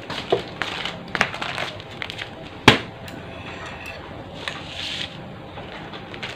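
Close-up eating sounds of bakso meatball soup: wet chewing and small clicks, one sharp click about two and a half seconds in, and a short slurp near the middle.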